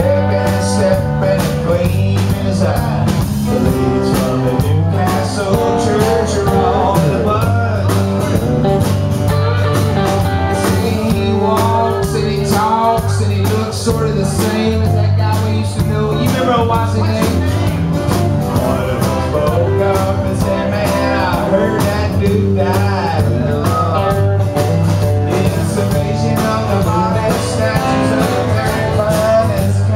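Live country-rock band playing: electric guitar, acoustic guitar, electric bass and drum kit, with a steady bass-and-drum groove under a bending melodic lead line.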